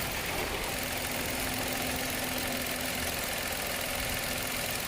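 Mitsubishi Mirage G4 engine idling steadily after a repair to the injector number 1 wiring, running without the misfire it had before the splice, with a faint steady hum under it.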